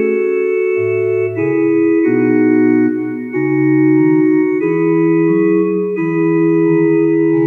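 Slow organ chords played on an electronic keyboard: sustained notes over a stepping bass line, changing every second or so, as the instrumental introduction to a hymn.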